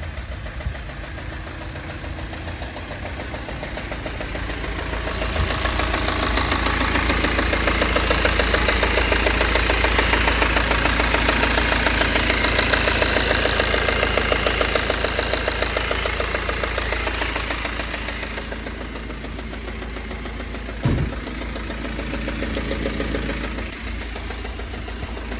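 BMW 320d N47 four-cylinder diesel engine running with a fast, rhythmic ticking. The sound grows louder through the middle stretch, and a single short knock comes near the end. The ticking is the fault the owner is asking about; its cause is unknown, with the timing chain, injectors or lifters among the suspects.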